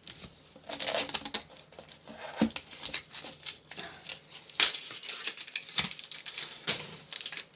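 Crinkling and rustling of a foil Pokémon booster pack wrapper and trading cards being handled, in short irregular bursts.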